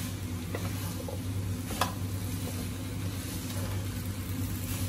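Wooden spatula stirring and turning avial vegetables with crushed coconut in a nonstick pan, with a light sizzle from the cooking pan. A few sharp taps of the spatula against the pan, the loudest about two seconds in.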